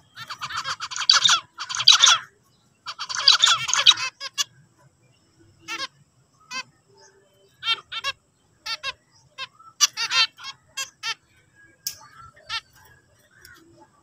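Zebra finches singing and calling. Two rapid, buzzy song phrases come in the first four seconds, then a string of short nasal calls and chips at irregular intervals.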